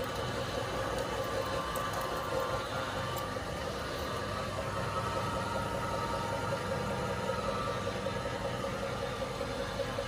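Meat grinder running with a steady hum while it grinds polymer clay.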